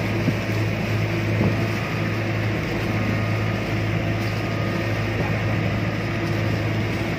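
Outrigger boat's engine running at a steady cruising drone, with the hiss of wind and water rushing past the hull.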